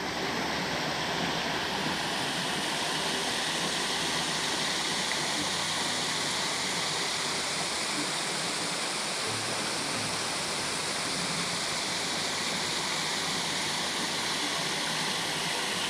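Small creek waterfall spilling over layered rock ledges into a pool: a steady rush of falling water.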